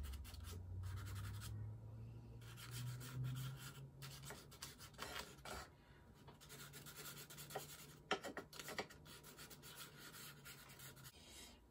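Soft pastel stick rubbing and scratching across textured drawing paper in short, irregular strokes, over a faint low hum.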